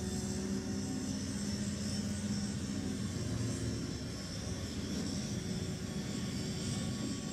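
Diesel machinery of harbour dredging works running steadily: an excavator on a pontoon working beside a floating dredge pipeline. It makes a low, even engine hum with a constant tone.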